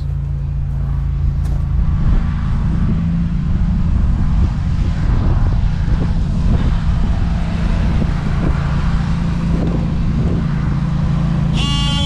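An engine running steadily at a constant speed, loud and low, with faint irregular knocks over it. Just before the end a loud, sustained buzzing tone with many overtones cuts in suddenly.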